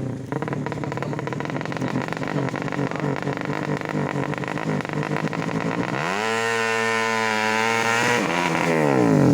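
Bored-out 200cc underbone motorcycle engine running unevenly at low revs, then revved up hard about six seconds in and held high. It climbs a little more and is dropping back at the very end.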